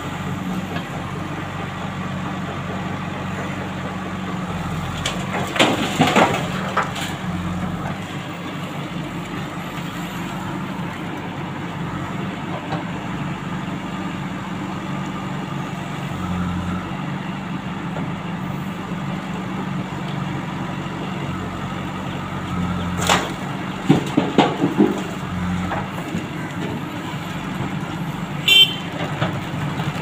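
Diesel engine of a JCB backhoe loader running steadily under load while the backhoe digs, with loud clanks and knocks of the bucket and earth about six seconds in and again a little before the end. A short high tone sounds near the end.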